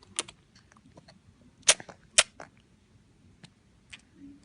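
A five-month-old baby making noises with his mouth: a few short sharp clicks, with two loud ones about half a second apart in the middle.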